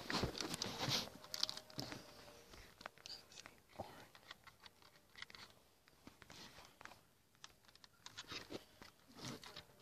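Faint rustling and crackling with scattered small clicks, busiest in the first two seconds and sparse after that.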